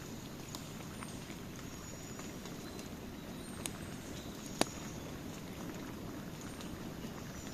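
Campfire burning: a steady low rush of burning wood with scattered sharp crackles and pops, the loudest about four and a half seconds in. A few faint, short, high bird chirps sound over it.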